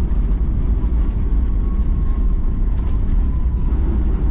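Cabin noise inside a Boeing 757-200 during landing: a steady, loud low rumble with a faint whine that slowly falls in pitch.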